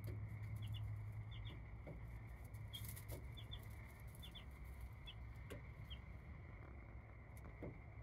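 Baby chicks peeping: short, high peeps, singly and in pairs, every half second to a second, over a steady low hum.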